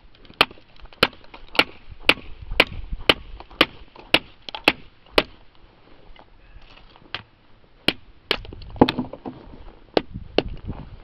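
Mallet striking the spine of a G-10 and titanium composite knife, batoning it down through a board of frozen wood. Sharp knocks come about two a second for five seconds; after a short pause, a few more spaced blows follow, the loudest about nine seconds in.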